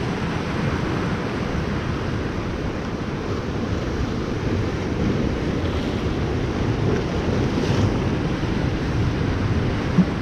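Ocean surf washing over rocks at the shoreline, a steady rushing, with wind buffeting the microphone. One short knock near the end.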